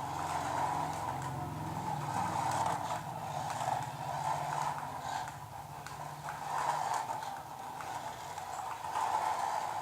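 Mini RC toy car running: its small electric motor and plastic gears whirring, with a rapid rattly clicking and a hum that shifts in pitch through the first seven seconds or so.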